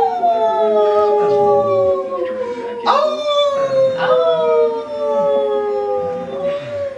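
Husky howling: long drawn-out howls that start sharply and slide slowly down in pitch, with a new howl about three seconds in and two howling voices overlapping at times.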